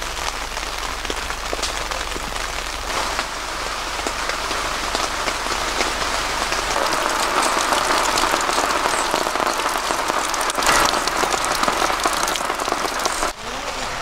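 Heavy rain falling on tent and tarp fabric: a dense, even hiss of drops that grows a little louder about halfway through.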